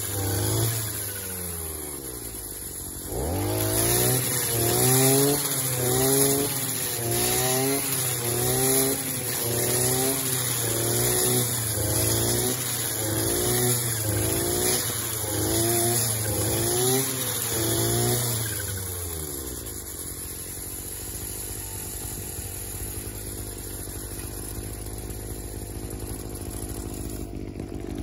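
Partner brushcutter's small two-stroke engine cutting long grass, its pitch rising and falling about once a second as the head is swung through the grass. About two thirds of the way in it settles to a steadier, lower, quieter running.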